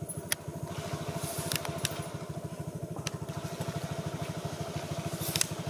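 A small engine idling with a steady, fast putter, and a few sharp clicks over it.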